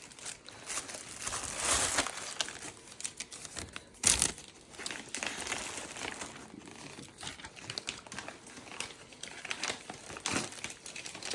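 Paper and wrapping crinkling and rustling as a gift is unwrapped by hand, irregular throughout, with one louder rip-like burst about four seconds in.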